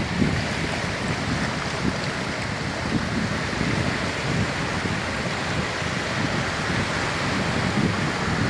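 Sea waves washing onto a beach: a steady rush of surf with no single breaker standing out.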